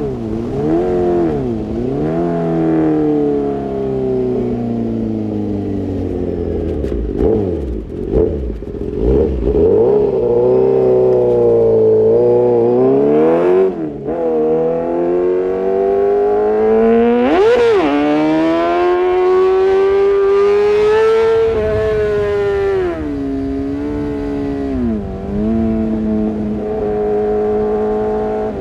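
Kawasaki ZX-6R inline-four engine through an Arrow Pro-Race exhaust, running with its pitch rising and falling as it revs up and comes off the throttle. A little past the middle it gives one sharp high rev and drops straight back.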